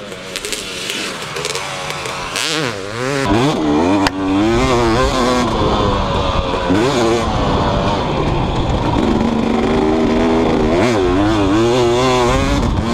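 2018 Husqvarna TC250's single-cylinder two-stroke engine being ridden hard, its pitch rising and falling repeatedly as the throttle is worked. Quieter for the first three seconds, then loud and close.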